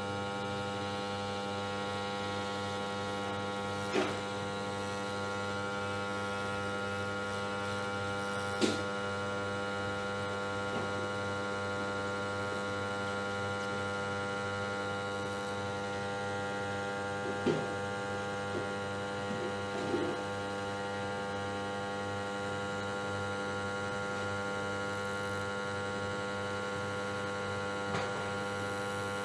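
Hot air plastic welder's blower running with a steady electric hum made of many even tones, as it heats a plastic welding strip and the panel. A few short clicks or taps sound now and then over it.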